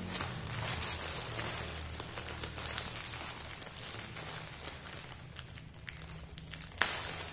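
Thin plastic wrapping crinkling and crackling as it is pulled and cut open with scissors, with a sharper snip near the end, over a faint steady low hum.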